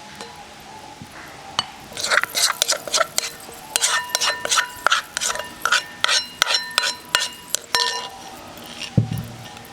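A spoon scraping and clinking against the mortar as the last of the papaya salad and its sauce are scraped out: a quick run of ringing clinks lasting about six seconds, then a single dull thump near the end.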